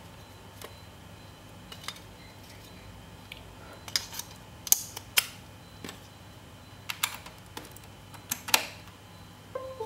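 Scattered sharp clicks and taps of small plastic parts being handled as an AA battery is fitted into an opened Logitech M170 wireless mouse. The clicks are loudest about four to five seconds in and again near the end.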